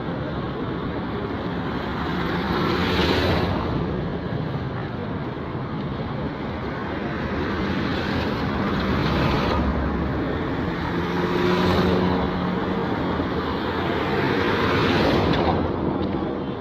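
Road traffic: a steady hum of traffic with vehicles passing one after another, each swelling and fading, four times.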